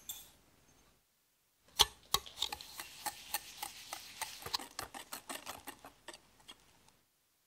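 A wire balloon whisk beats egg yolks and granulated sugar in a glass bowl. The wires click against the glass about three or four times a second over a grainy, scraping hiss. The whisking starts about two seconds in and stops shortly before the end.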